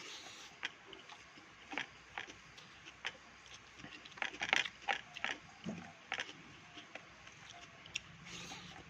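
Close-up eating sounds: scattered short wet mouth clicks and chewing, busiest about four to five seconds in.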